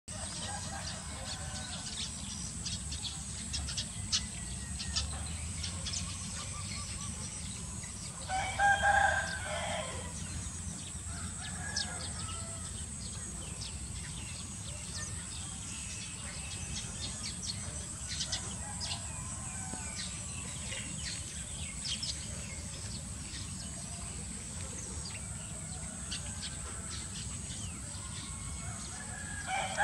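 A loud fowl call, like a rooster crowing, lasting under two seconds about eight seconds in, with another starting at the very end. Fainter calls and many small high chirps are scattered throughout over a steady low background hiss.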